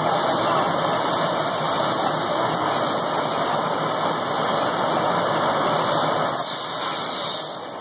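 Mitsubishi ML3015EX Plus CO2 laser cutter cutting 1 mm cold-rolled steel sheet: a steady, loud hiss from the gas jet at the cutting nozzle over the machine's running noise, easing a little near the end.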